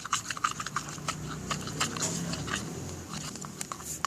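A spoon stirring thick glue mixed with food colouring in a container, making irregular wet clicks and sticky squelches.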